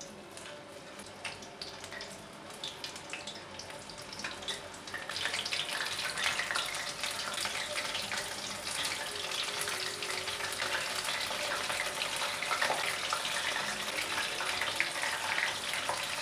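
Batter-coated soya chunks deep-frying in hot oil in a stainless steel kadai, sizzling and crackling with many small pops; the frying grows louder and denser about five seconds in as more pieces are dropped in.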